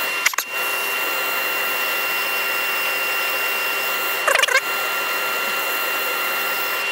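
Wood lathe running at reduced speed while 120-grit abrasive is held against the inside of the spinning bowl: a steady whirring hiss with a constant motor whine. A short wavering squeal sounds about four seconds in.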